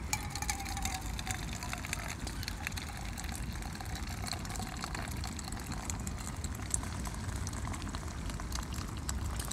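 Liquid pouring in a thin stream from a stainless steel pot through the strainer holes in its lid into a metal mug: a steady trickle and splash.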